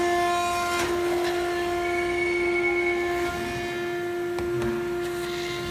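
CNC router running with a steady high whine, with a few sharp clicks over it.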